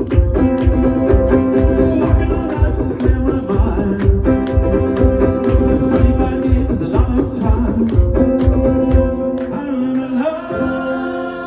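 Live music: a steady beat of about two a second under sustained, layered pitched parts. About nine and a half seconds in the beat stops, leaving only held notes.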